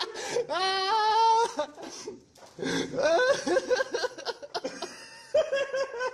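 People laughing and exclaiming, with a drawn-out high-pitched vocal cry about a second in.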